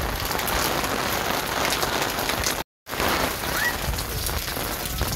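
Heavy, torrential rain pouring down steadily. The sound drops out completely for a moment about two and a half seconds in.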